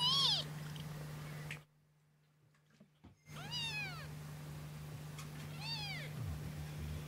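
Young Burmese kittens mewing: three short high-pitched mews, each rising then falling in pitch, one at the start, one a little past three seconds in and one about six seconds in, over a steady low hum.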